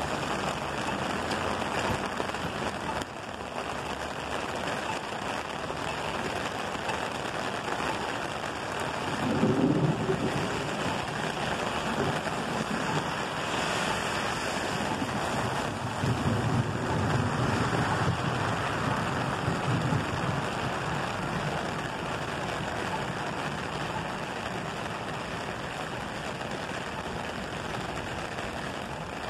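Heavy rain pouring steadily onto wet pavement in a thunderstorm, with a low rumble of thunder about a third of the way in and a longer one just past halfway.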